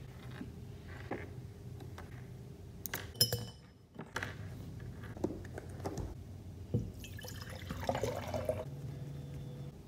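Glass jar and supplies set down on a tabletop, with a sharp glass clink about three seconds in and a few lighter knocks. Near the end, water is poured from a bottle into the glass jar, splashing as it fills, for a second or two.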